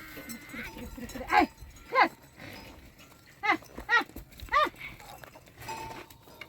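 Sheep and goats bleating: five short calls, two in the first half and three close together around the middle.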